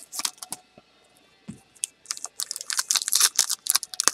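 The foil wrapper of a 2012 Panini Prizm Baseball card pack crinkling and tearing as it is pulled open by hand: irregular crackles, a brief pause about a second in, then denser crinkling.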